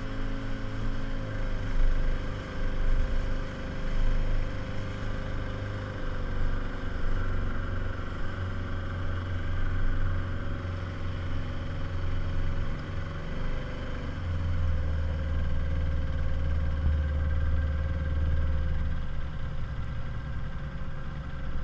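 Outboard motor of a small inflatable speedboat running steadily under way, its note dropping a little about two-thirds of the way through, over the rush of water against the hull.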